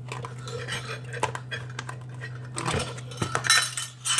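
A kitchen utensil scraping and clinking while margarine is scooped from a plastic tub into a measuring cup: scattered clicks and scrapes, busiest about two-thirds of the way through.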